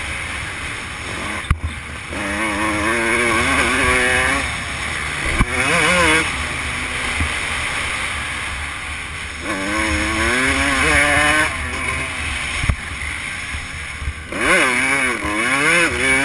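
Dirt bike engine revving up and easing off in repeated surges as the bike is ridden hard around a motocross track, with a low wind rumble on the mounted camera's microphone. Three sharp knocks come through from bumps or landings.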